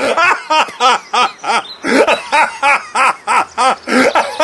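A man laughing heartily and without pause, in a fast run of pitched "ha" syllables, about five a second, each rising and falling in pitch. This is the deliberate, sustained laughter of laughter yoga.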